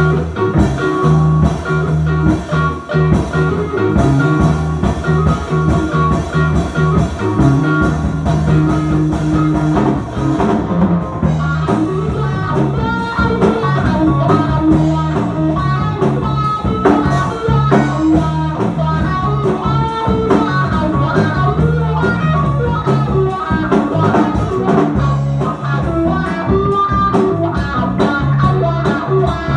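Live progressive rock band playing: electric guitar over electric bass and a drum kit keeping a steady beat. The cymbals drop back briefly about ten seconds in, then the drumming picks up again.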